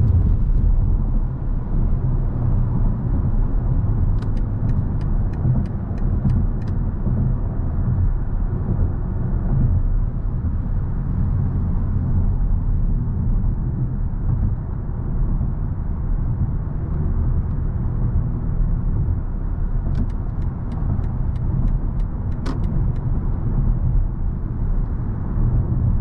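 Steady low road and drive rumble inside the cabin of a moving BMW i7 electric sedan. Two short runs of light, evenly spaced ticks come through, one about four seconds in and one near twenty seconds in.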